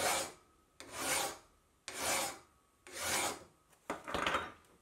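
Flat hand file stroked across the sharp machined edge of a cast-iron vise body, filing the edge down: about five rasping strokes, roughly one a second.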